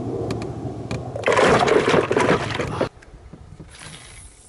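Water splashing close to the microphone: a loud rush lasting about a second and a half that cuts off suddenly, followed by faint lapping water.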